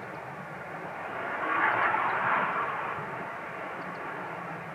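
Saab JAS-39 Gripen fighter jet flying past, its single jet engine a continuous rushing roar that swells to its loudest about two seconds in, then eases off.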